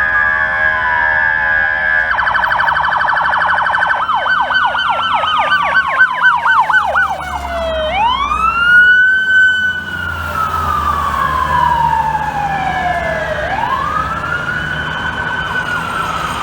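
Fire truck sirens, more than one at once. A wail sweeps slowly down in pitch and climbs back up, and a fast yelp warbles rapidly over it from about four seconds in until just past the middle.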